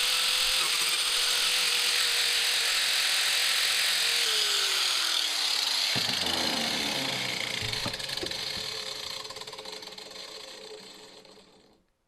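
Angle grinder fitted with a Lancelot saw-chain carving disc, cutting into walnut wood. Near the end it is switched off and spins down to silence.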